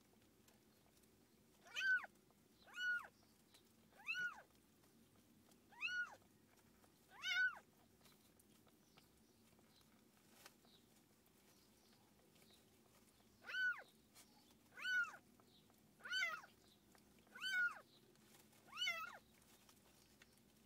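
Newborn kitten crying in short, high-pitched mews while its mother licks it clean just after birth: five cries about a second apart, a pause of several seconds, then five more.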